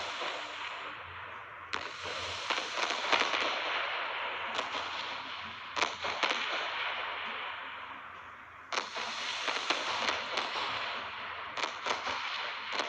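Fireworks going off: a crackling hiss starts suddenly about two seconds in and again about nine seconds in, each fading over several seconds, with scattered sharp cracks and bangs and a quick run of them near the end.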